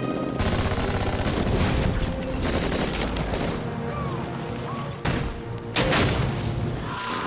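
Film battle sound effects: a dense barrage of rapid gunfire, rifle and machine-gun shots, with a loud explosion about six seconds in, over music.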